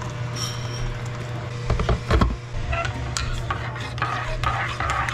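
Hot water poured from a kettle into a ceramic mug, then a couple of loud knocks about two seconds in, then a metal spoon stirring coffee with quick light clinks against the mug, over a steady low hum.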